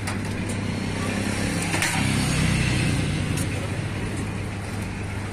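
Roadside traffic noise: a steady engine hum, with a vehicle passing about two seconds in. Background voices and a few light clinks of a steel ladle against steel pots can be heard over it.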